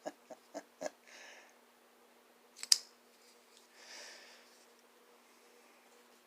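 Benchmade Aileron folding pocket knife being handled: a few light clicks, then one sharp click from the blade and lock mechanism about two and a half seconds in. A soft breath-like rush follows about four seconds in.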